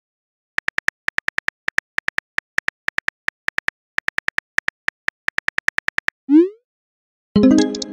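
Phone keyboard key clicks as a text message is typed: a quick run of short ticks, several a second, for about five seconds. Then a short rising whoosh as the message is sent, and near the end a ringing electronic chime.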